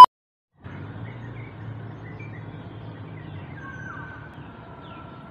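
Outdoor morning ambience: a steady low hum of distant city traffic with faint bird chirps over it. A loud electronic beep cuts off at the very start, then there is half a second of silence before the ambience comes in.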